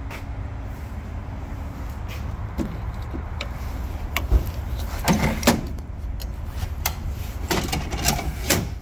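Scattered clicks and knocks from a Ford F-150's tailgate and fold-out tailgate step being handled, with a denser clatter about five seconds in, over a steady low rumble.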